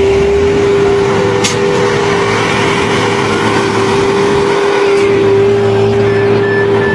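Road construction machinery running steadily, with a constant whine held on one pitch over the engine noise and a brief click about a second and a half in.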